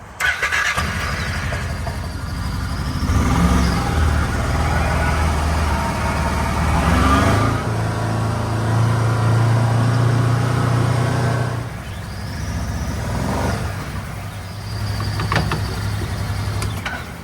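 A motor vehicle's engine running, its pitch rising and falling several times as it is revved.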